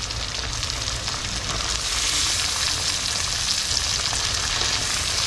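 Mangrove jack fillets sizzling in hot garlic-lemon butter in a frying pan as they are flipped with tongs; the crackling sizzle grows a little louder about two seconds in.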